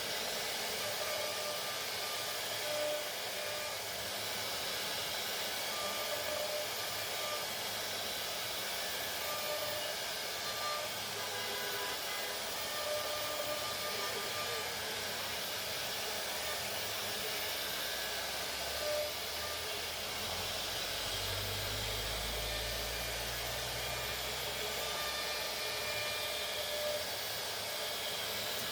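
CNC router spindle running and cutting, a steady high hiss with a few faint steady tones. A low rumble swells in about two-thirds of the way through and fades again.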